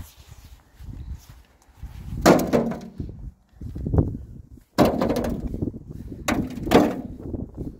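Soil and clods being scooped and scraped out of a hole in the ground by gloved hand. There are about five loud scraping knocks among quieter rustling.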